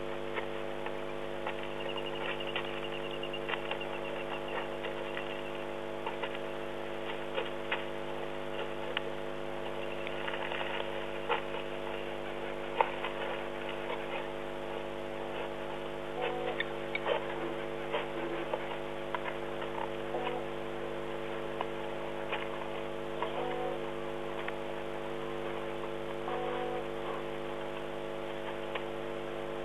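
Steady electrical hum of several held tones from the stream's audio chain, with scattered faint clicks and ticks. A few short two-note tones, each stepping down in pitch, come in the second half.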